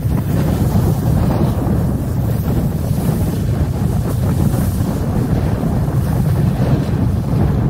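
Wind buffeting the microphone of a handheld camera while snowboarding downhill: a steady, loud low rumble with no distinct events.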